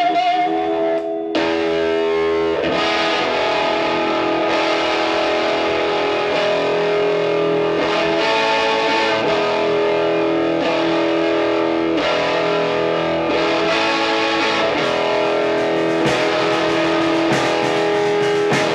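Live rock band playing an instrumental passage with distorted electric guitar, bass and drums. It opens on a wavering held tone, and the full band comes in hard about a second in.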